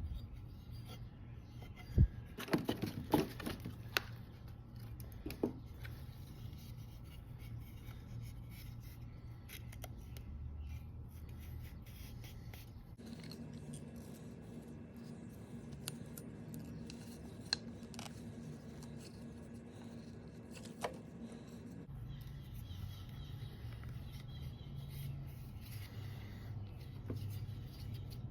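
Faint rubbing and scraping of a shoelace being wrapped and pulled tight to lash a wooden handle onto a piece of steel lawn mower blade, with a cluster of sharp clicks and knocks about two to four seconds in and a few single ticks later, over a steady low hum.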